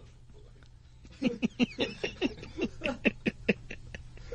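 A person laughing in a quick run of short "ha-ha" bursts, starting about a second in and lasting a couple of seconds, over a faint steady studio hum.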